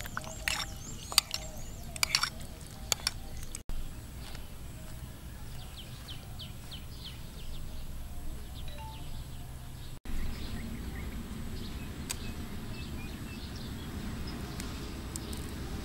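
A metal spoon clinks against a bowl several times in the first three seconds. Then a run of quick bird chirps sounds over steady low outdoor background noise.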